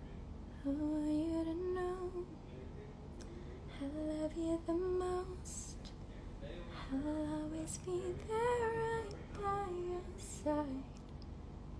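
A woman softly humming a slow tune in three phrases, with held notes stepping up and down.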